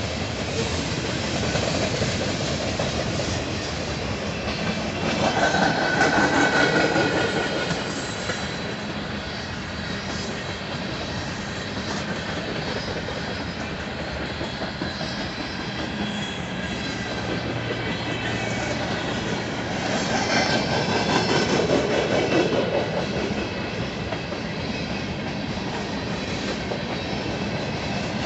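Freight cars of a long mixed freight train rolling past, steel wheels clattering over the rail joints. The noise swells twice, about five seconds in and about twenty seconds in, each time with a thin high wheel squeal.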